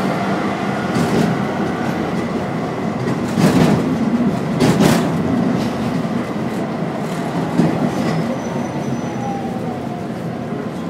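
Tram running along its line, heard from inside the car: a steady rumble of wheels on the rails, with a few louder clatters about three and a half and five seconds in.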